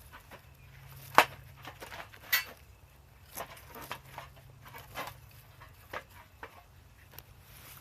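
Wood fire crackling in a small camp stove, with sharp pops and snaps at irregular intervals; the loudest comes about a second in and another a second later.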